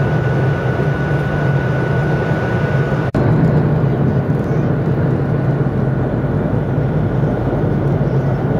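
Steady cabin noise inside a Boeing 737-700 in flight: the drone of its CFM56-7B turbofan engines and the rush of air over the fuselage, with a low hum and a thin steady whine. The sound drops out for an instant about three seconds in, and after that the whine is gone.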